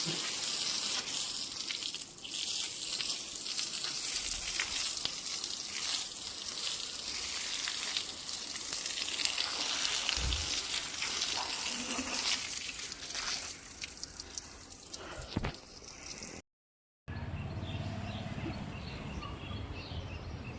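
Rain falling steadily: an even hiss of rain with many small drips and splashes. About sixteen seconds in it cuts off, and a quieter sound with a low hum follows.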